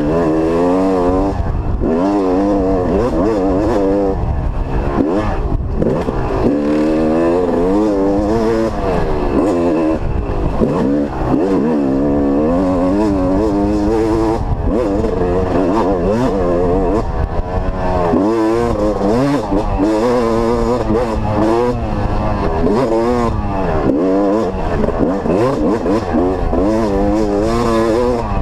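Dirt bike engine heard from the rider's helmet, revving up and dropping back again and again as the throttle is worked along a twisting, rutted woods trail.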